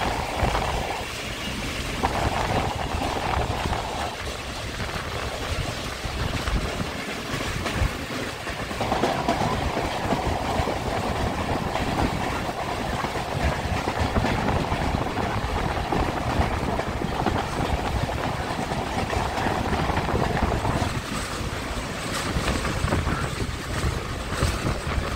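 Passenger train rolling along the track: a steady rumble and rattle of the cars on the rails, with a higher rushing noise that swells in about two seconds in, drops away, then returns for a long stretch before fading again.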